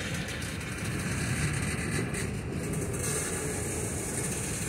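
Freight train hopper cars rolling along the rails, a steady low rumble.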